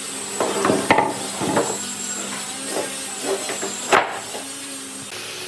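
Wood being knocked and handled over a steady machine hum, with sharp knocks about a second in and again near four seconds in.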